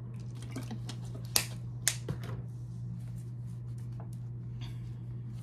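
Tarot cards being drawn and set down: a few light clicks and taps, the sharpest about one and a half and two seconds in, over a steady low hum.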